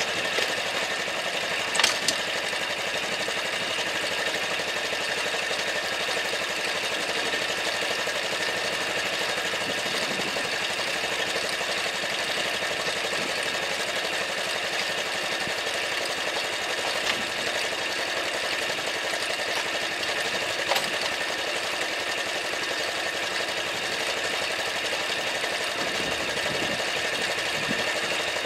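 Honda Super Cub's single-cylinder four-stroke engine idling steadily, with a few short sharp clicks, the loudest about two seconds in.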